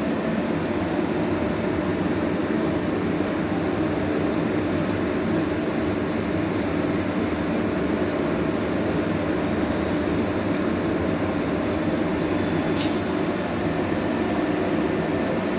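Cazeneuve ID-Max CN 600 CNC lathe running with a steady, even mechanical hum. A single short, sharp click comes near the end.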